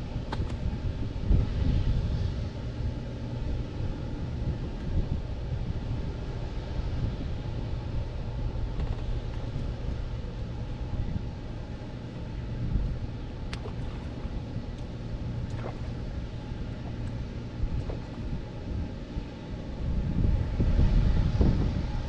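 Wind buffeting the microphone: a steady low rumble that swells and eases, growing louder near the end, with a few faint clicks.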